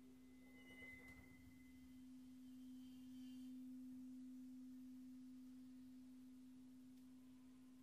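A bowed metal bowl ringing with one quiet, steady low tone, its faint higher overtones fading in and out during the first few seconds.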